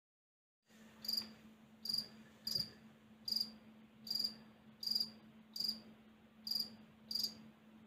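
A cricket chirping: nine short, evenly spaced chirps, about one every 0.7 seconds. A faint steady hum runs underneath.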